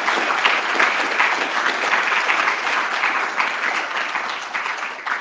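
Audience applauding: many people clapping steadily, fading out just after the end.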